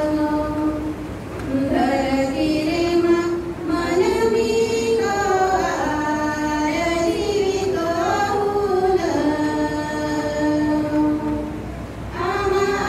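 A group of voices, women's prominent, singing a slow melody in long held notes. The phrases break briefly about a second in and again near the end.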